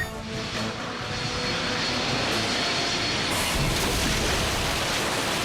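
Cartoon jet-engine sound effect: a loud, steady rushing noise that builds in the first second as the music underneath fades out.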